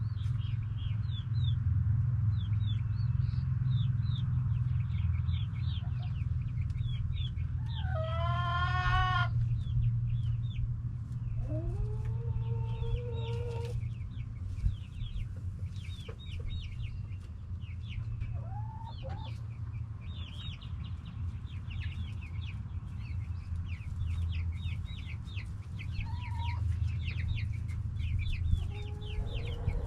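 Backyard chickens calling and clucking over dense, quick high chirping. A loud, drawn-out call comes about eight seconds in, and a two-note call soon after. A steady low hum runs underneath.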